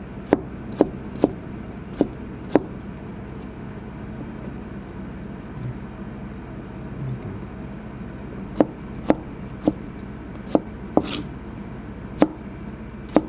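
A kitchen knife slicing young ginger into thick sticks on a cutting board: five sharp knocks of the blade on the board in the first three seconds, a pause, then about seven more unevenly spaced knocks.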